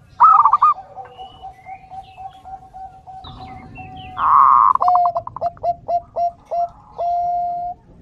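A dove cooing: a quick run of quavering notes that settles into a long held coo, then about four seconds in a loud rough burst followed by a string of short clipped coos ending in another long held note. Faint chirps from small birds come in between.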